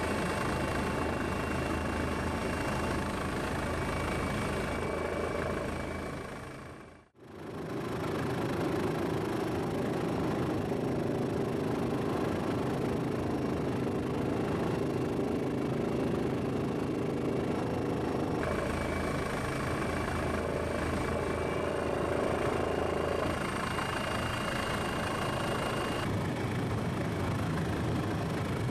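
Steady helicopter engine and rotor noise with a low hum, cut by a brief fade to near silence about seven seconds in.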